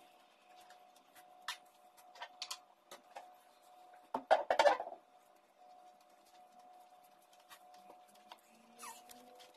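Cleaning with a long-handled broom: scattered light taps and knocks, with a louder rattling clatter about four seconds in, over a faint steady hum.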